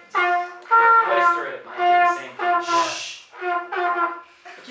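Trumpet playing a short phrase of separate, detached notes, each about half a second long.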